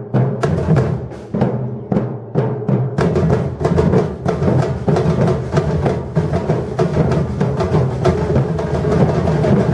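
Batucada drum ensemble playing a driving rhythm, with deep surdo bass drums under dense snare and higher drum strokes. The rhythm fills out about three seconds in as more drums join.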